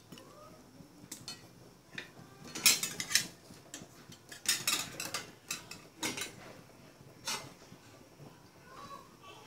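Irregular metal clinks and knocks of a utensil and steel cookware being handled, a few sharp strikes at a time with short pauses between.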